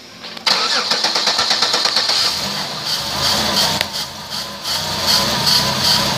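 2007 Chevrolet Impala's 3.5-litre V6 being started: the starter cranks from about half a second in, the engine catches about two seconds in and settles into steady running.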